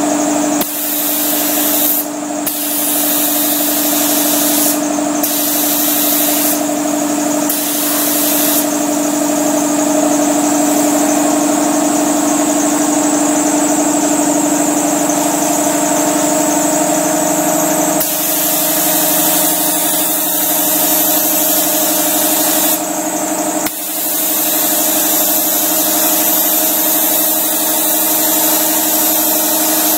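Gravity-feed spray gun hissing as it sprays primer, the hiss cutting out briefly several times when the trigger is let off, over a steady motor hum.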